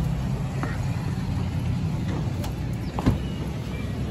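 Low steady vehicle rumble, with a sharp click about three seconds in as a car door is opened.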